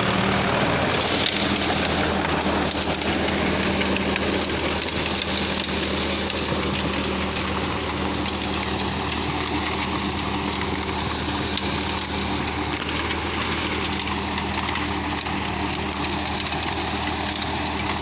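Heavy rain falling steadily, with the steady low hum of an idling engine underneath.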